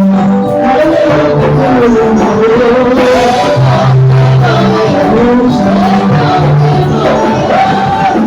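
Loud church worship music: a melody with singing over bass notes held about a second each, with a steady beat of percussion.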